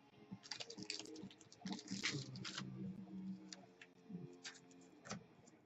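A trading card pack being handled and opened: irregular crinkling and clicking of the wrapper and cards, busiest in the first half.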